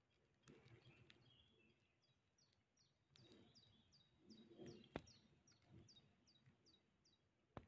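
A songbird singing a quick series of about a dozen short, high notes that each drop in pitch, repeated about three times a second. Faint low rustling and two sharp clicks, the louder one near the end.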